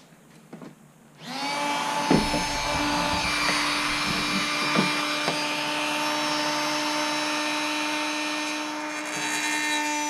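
A small high-speed handheld power tool starts about a second in and runs with a steady high whine as it works a flat steel bar being made into a seat bracket. A few short scrapes of metal are heard along the way.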